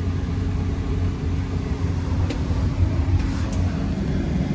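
Case CX330 excavator's diesel engine idling steadily, heard from inside the cab as a low, even hum.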